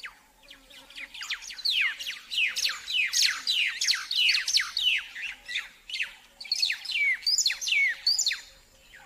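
Weaver birds chattering in a colony: many quick, overlapping downward-sweeping chirps, thinning out near the end.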